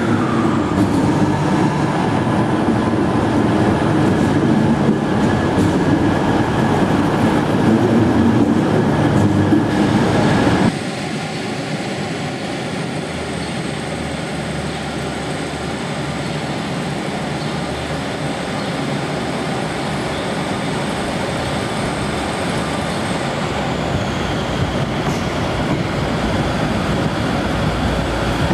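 Class 158 diesel multiple unit's engine running loudly and steadily beside the platform for about ten seconds, then an abrupt cut to a quieter, steady train rumble that grows a little louder near the end.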